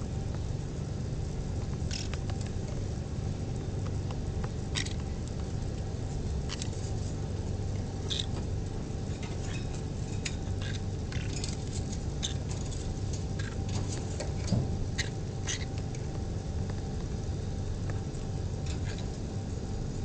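Steady low hum of a small electric fan, with scattered short, high ticks and scratches from pineapple green-cheeked conure chicks moving about in wood shavings inside a plastic tub.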